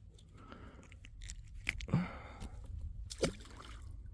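Faint handling noise: scattered rustling and light clicks, with a short grunt-like sound about two seconds in and another brief blip a little after three seconds.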